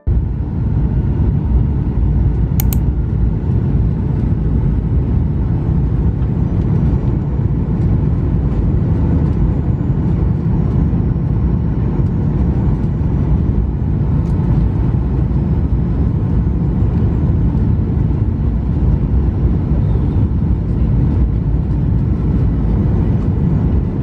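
Jet airliner cabin noise during the approach and landing: a loud, steady rumble of engines and airflow heard from inside the cabin.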